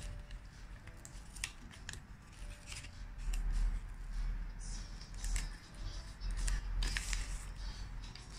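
A printed sticker and its backing paper being bent and peeled by hand, giving a run of short, sharp crackles and rustles, thickest in the second half.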